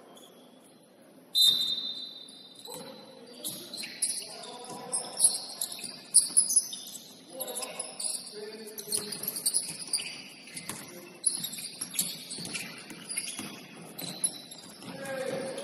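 Basketball shoes squeaking on a hardwood gym floor in short, high-pitched squeals, mixed with the thud of the ball bouncing and players' voices. A loud high squeal comes about a second and a half in.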